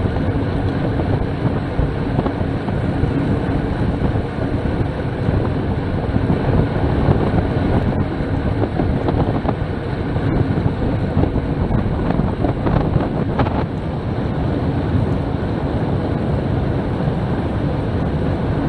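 Wind rushing and buffeting over a bike-mounted camera's microphone while riding at about 28 mph, a steady loud rumble with no let-up.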